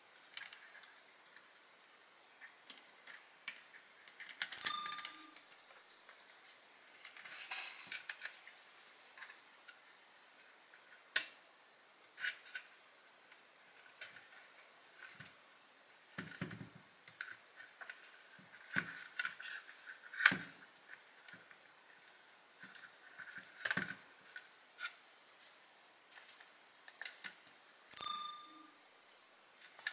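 Scattered light clicks and small knocks, with two short beeps, one about five seconds in and one near the end.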